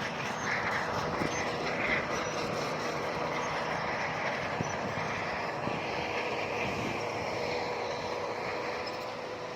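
Bulldozer's diesel engine running steadily with a constant hum, and a few faint clanks from its steel tracks.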